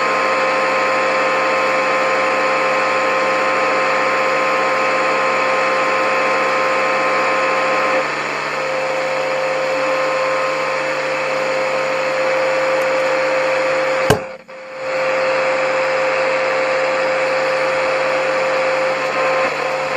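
Radio static between stations: a steady hiss with faint steady whistle tones. About fourteen seconds in a sharp click cuts in, the hiss drops out for a moment, and then it returns.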